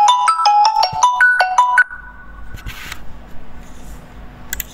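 A short electronic ringtone-like jingle: a quick run of bright beeping notes, ending on a held note that fades away less than two seconds in. After it comes a faint low hum, and a couple of sharp clicks near the end.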